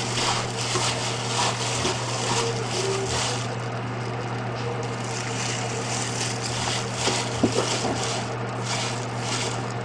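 A plastic-gloved hand rustles and lifts dressed jellyfish salad out of a stainless steel bowl and piles it onto a plate, over a steady low hum.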